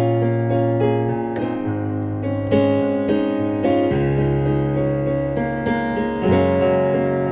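Instrumental background music: piano-like keyboard chords changing every second or so over held bass notes.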